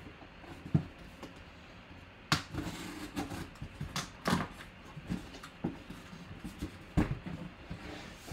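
A cardboard box being opened by hand and a mini football helmet in its clear plastic display case being lifted out: scattered knocks and clicks with scraping and rustling between them, the sharpest about a second in, a little after two seconds, around four seconds and at seven seconds.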